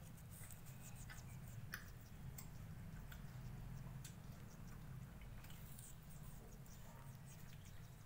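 A green parakeet's beak nibbling and scraping at a piece of soft fruit, a run of faint, irregular small clicks and wet ticks over a low steady hum.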